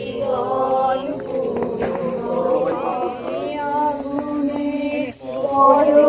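Several voices singing a devotional chant, holding long notes, with a few light clicks around the middle.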